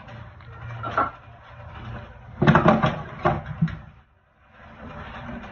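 Wooden cabinet door being handled and spray bottles set down in a plastic basket inside the cabinet: a click, then a short run of light knocks and clatters about halfway through.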